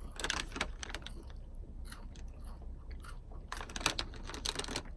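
Crunchy chewing of a chocolate-and-almond-coated wafer: irregular runs of crisp crunches, busiest near the start and again about three and a half seconds in.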